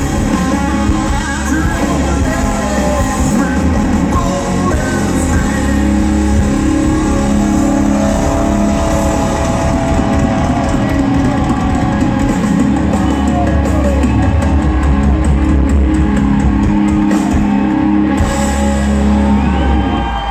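Live rock band playing loud, with electric guitars and a sung lead vocal.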